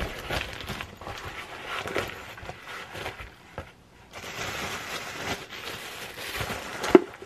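Close rustling and crinkling as a woven tote bag is handled and a plastic-wrapped food item is packed into it, with a sharp knock near the end.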